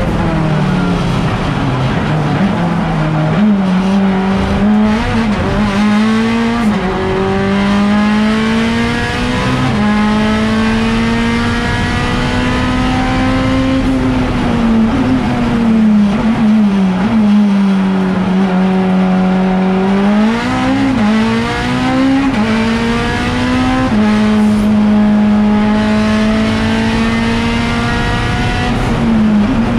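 Mitsubishi Lancer Evolution IX race car's turbocharged four-cylinder engine, heard from inside the cockpit at racing speed. The engine note climbs under acceleration and drops under braking and downshifts, with the pitch jumping at gear changes.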